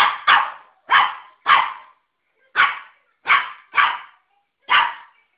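West Highland white terrier puppy barking during rough play with a toy: eight short, sharp barks, some in quick pairs, spread unevenly over about five seconds.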